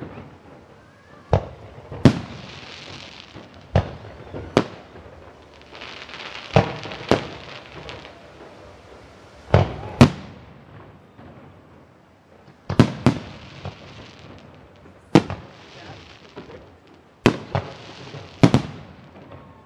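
Aerial fireworks going off: sharp bangs every couple of seconds, often in close pairs, some followed by a crackling hiss as the shells burst.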